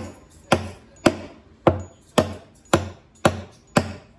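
Hammer blows on a metal punch, about eight sharp metallic strikes at a steady two a second, each ringing briefly.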